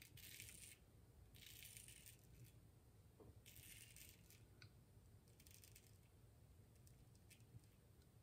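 Faint rasp of a safety razor scraping through lathered stubble on the cheek: four short strokes, each under a second, about two seconds apart.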